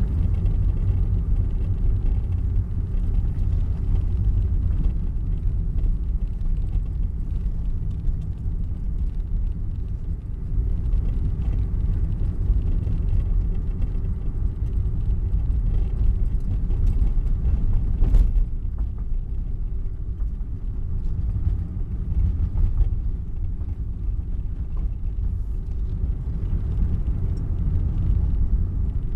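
Car driving, heard from inside the cabin: a steady low rumble of engine and tyre noise, with one sharp knock about eighteen seconds in.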